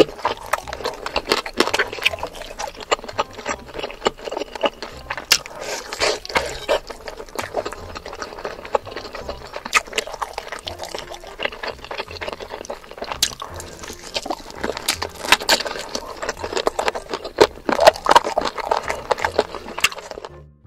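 Close-miked ASMR eating of fried chicken: wet chewing and lip-smacking with a dense crackle of small crisp clicks. It cuts off suddenly just before the end.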